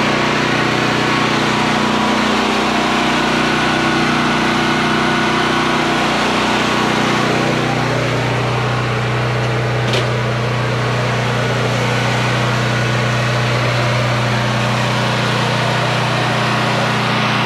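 Pressure washer running: a steady motor hum under the hiss of the water jet. The hum drops a little in pitch just past halfway, and there is one sharp click about ten seconds in.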